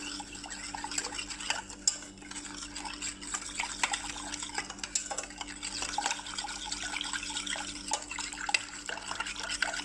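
Metal spoon stirring a milky liquid in a stainless steel saucepan, with quick irregular clinks and scrapes against the pan's sides and bottom as cornstarch and sugar are mixed into the milk.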